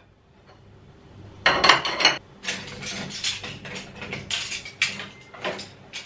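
Dishes clinking and clattering as they are taken out of a dishwasher and set on a shelf: a string of short knocks starting about a second and a half in.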